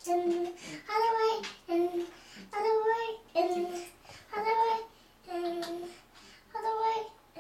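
A young child singing a wordless sing-song tune in short held notes, the same few-note phrase repeating with brief pauses between.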